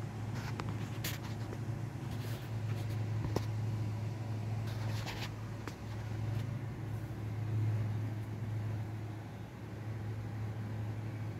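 Steady low mechanical hum, with a few faint clicks in the first half.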